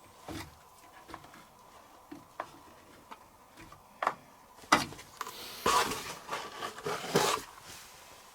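Scattered light clicks and a few brief scrapes and rustles of plastic: a liquid detergent bottle and its measuring cap being handled while detergent is dosed for a washing machine. The handling sounds grow busier in the second half.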